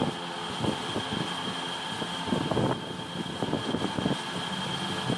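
Thin plastic bags crinkling and rustling in short, irregular crackles as biscuit packets are handled and bagged, over a steady background hum.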